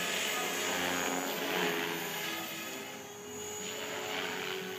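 Electric RC helicopter, a Miniature Aircraft Furion 450 on a 6S battery, in flight: the high whine of its brushless motor, gears and spinning rotor blades, shifting in pitch as it manoeuvres. It dips in level about three seconds in as it climbs away.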